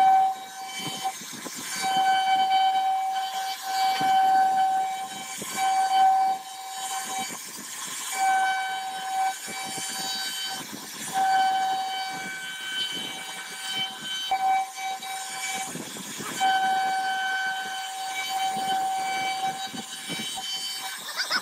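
CNC router spindle carving grooves into a wooden door panel: a high whine with overtones that drops out and comes back every second or two as the bit moves through the cut, over the rough noise of the cutter chewing wood.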